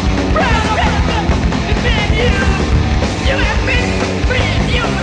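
A punk rock band playing live, with shouted vocals over loud, dense band music.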